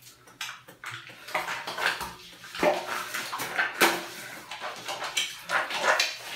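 Hands scrubbing soap-lathered skin in a tiled shower, making irregular short wet rubbing and smacking sounds.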